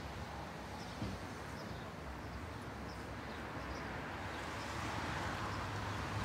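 Outdoor street ambience: a steady low hum of distant traffic with faint bird chirps and a soft thump about a second in.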